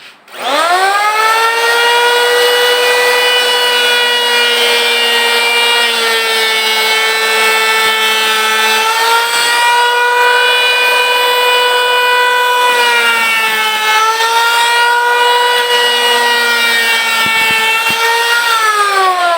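TOTAL 1050W electric hand planer switched on: its motor and cutter drum spin up to a steady high whine. The pitch sags briefly twice as the blades take load planing the wood. Near the end it is switched off and winds down.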